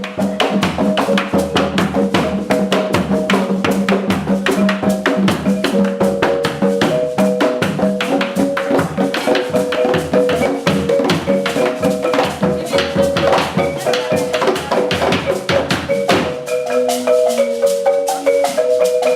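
Marimba de chonta played in fast, dense repeated figures, with percussion and lower parts under it. The lower parts drop out about sixteen seconds in, leaving the marimba's bright struck notes alone.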